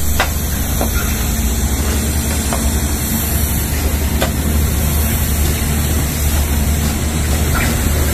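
Heavy construction machinery engine running steadily: a low hum under a constant hiss, with a few faint ticks.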